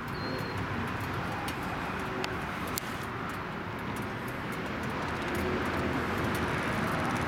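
Steady background road-traffic noise, a low even rumble that grows a little louder about five seconds in.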